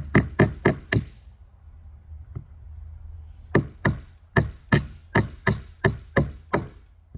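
Claw hammer striking nails into a platform, about three blows a second: a quick run of blows in the first second, a pause, then a steady run of about nine blows from about three and a half seconds in.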